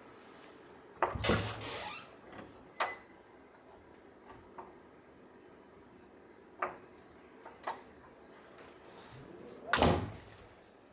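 A door sliding and knocking: a longer sliding burst about a second in and another near the end, with a few sharp knocks between them.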